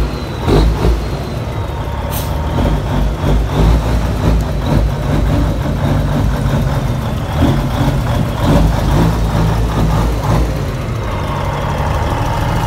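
Heavy truck engine idling steadily, with a low, even rumble.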